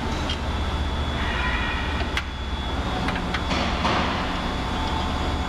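Alignment studs being unscrewed by hand from an assembled bolt-together torque converter and set on a steel table: a few light metal clicks and scrapes over a steady low hum.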